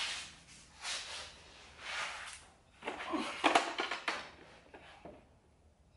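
Handling noises: short rustles and scrapes of hands and clothing, about one a second, with a louder cluster about three and a half seconds in, then quiet room tone near the end.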